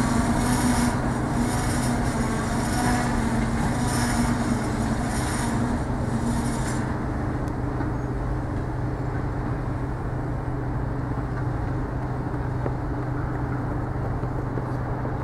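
Freight wagons rolling away on curved track: a steady low rumble of wheels on rails. Over it comes a pulsing high hiss and squeal from the wheels on the curve, which stops about seven seconds in, leaving only the fading rumble.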